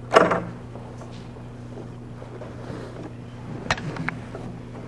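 Handling noise from a camera held against cloth: a short loud bump just after the start, then two sharp clicks near the end, over a steady low electrical hum.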